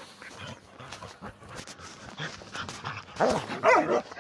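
A pack of shelter dogs crowding and jumping up around the person filming: soft scuffling for the first few seconds, then a short burst of loud yelps and whines with sliding pitch about three seconds in.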